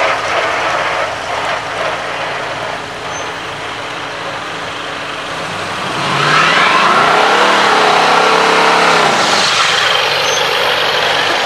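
Antique farm tractor's engine running as it drives past close by; from about six seconds in it grows louder, its pitch rising and then falling as it passes. Near the end, a vintage pickup truck's engine revving as it spins its tyres in a smoky burnout.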